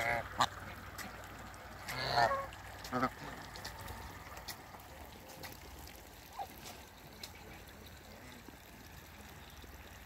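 African geese honking: a short call at the start, a longer and louder honk about two seconds in, and another short one a second later. After that only a faint background remains, with one brief call in the middle.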